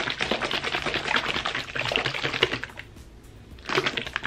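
A lidded plastic jar of water and slime powder shaken hard: fast, even clattering strokes with water sloshing inside, breaking off for about a second around three seconds in, then starting again.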